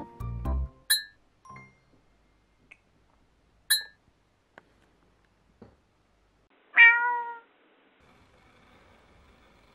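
A domestic cat meows once, loudly, about seven seconds in: a short call that falls slightly in pitch. Earlier come two short, sharp clicks about three seconds apart, with a few fainter ticks between.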